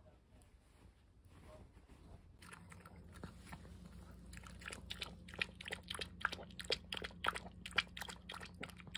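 A chihuahua lapping milk from a bowl: quick wet tongue laps, about four a second, starting about two and a half seconds in and growing louder.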